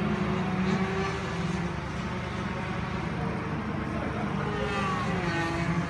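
Race vehicle engines running at a circuit, a steady drone whose pitch drifts slightly up and down.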